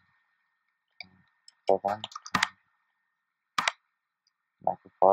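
A few sharp, separate clicks of a computer keyboard and mouse as a value is typed into a dialog box and the box is clicked.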